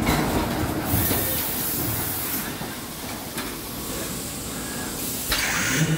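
CVP Impack fit-to-size packaging machine at work: clicks and knocks of its mechanism over a steady rumble, with hisses of compressed air. One high hiss comes about a second in and lasts over a second; a shorter one comes near the end.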